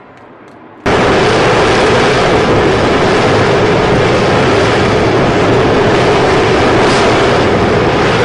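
X-47B's turbofan jet engine running at full power on the carrier catapult, a loud steady roar that cuts in suddenly about a second in.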